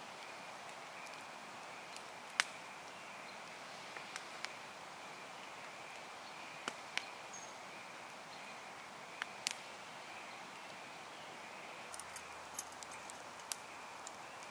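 Steady quiet outdoor hiss with scattered sharp clicks and snaps, which bunch together near the end, and one brief high chirp about halfway through.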